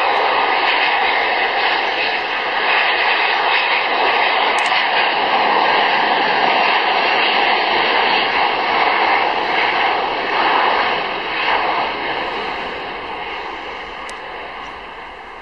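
Airbus A340-600's four Rolls-Royce Trent 500 turbofans at takeoff power during the takeoff roll: loud, steady jet engine noise with a few high steady fan tones, growing fainter over the last few seconds.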